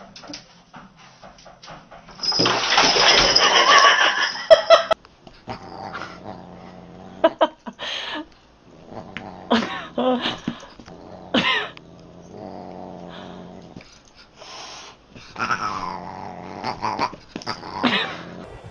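A cat and a dog play-fighting: growling and a cat's drawn-out yowls. The sounds come in short bursts with pauses between, and the loudest stretch is about two to five seconds in.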